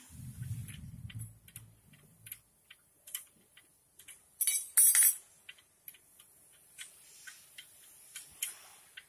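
Light metallic clicks and ticks in irregular runs from a wrench working the pressure-plate bolts on a Landini DT85 tractor clutch, with a louder metal clatter about halfway through. A low hum sounds in the first two seconds.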